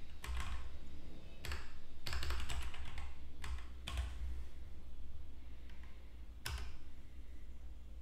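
Computer keyboard typing in several short bursts of clicks, over a steady low hum.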